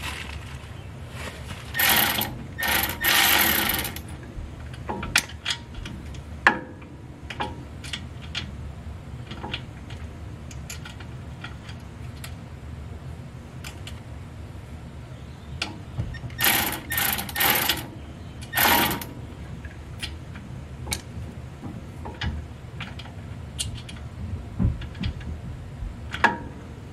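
Work on the bolts of a truck's lower control arm: a few short bursts of rapid mechanical rattling from a tool, two near the start and two more past the middle, amid scattered metal clinks and knocks.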